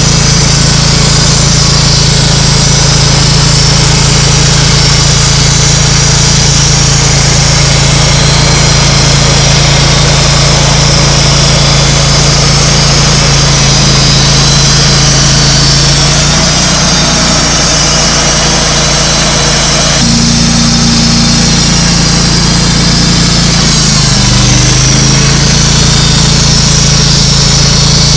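Wood-Mizer LT35 portable sawmill running steadily, its engine holding a constant hum while the band blade saws through a hemlock log with a steady high hiss. The engine note shifts a few times in the second half.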